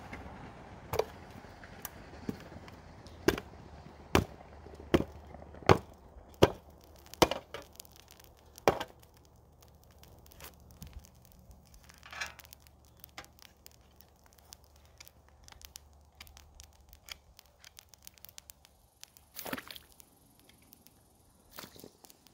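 A metal muffin tin is banged against the ground to knock cast aluminum muffins out of it. About nine sharp knocks come roughly a second apart, then only a few faint taps follow, over a low steady hum.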